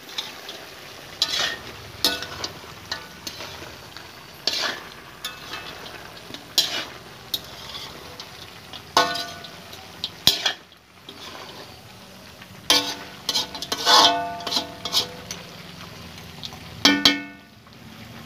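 Beef frying and sizzling in a large metal wok while a spatula stirs it, scraping against the pan in irregular strokes. A few of the scrapes give a short squeal.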